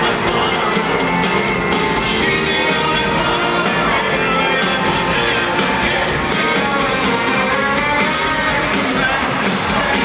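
Live country band playing with guitars, with singing, heard loud and steady from within a stadium crowd.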